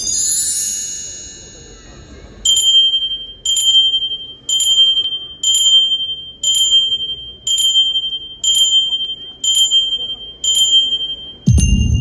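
Show soundtrack of bright chimes: a shimmering run of high chimes fading away over the first two seconds, then a high bell struck about once a second, nine times. Near the end, music with a deep bass comes in.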